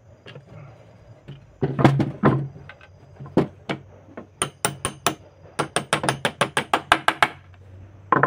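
Claw hammer nailing a wooden chair frame together: a few separate blows, then a fast run of about twenty quick strikes, roughly seven a second, and one last blow near the end.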